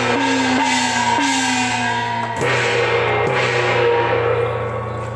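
Chinese procession gongs and cymbals struck in an irregular beat, about five strokes in the first three and a half seconds, each gong stroke ringing on with a pitch that sinks slightly. The ringing fades off near the end.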